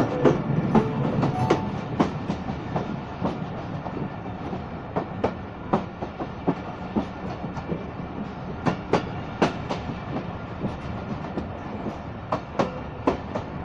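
Diesel-hauled passenger train passing, its wheels clacking over rail joints: sharp clicks, often in pairs and clusters at uneven spacing, over a steady rumble that slowly grows quieter.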